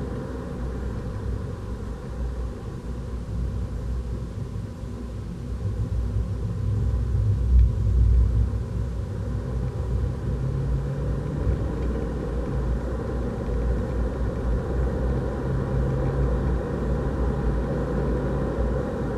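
Renault Clio RS 200's turbocharged 1.6-litre four-cylinder pulling at speed, heard from inside the cabin under heavy low road and tyre rumble. It swells loudest about seven to eight seconds in.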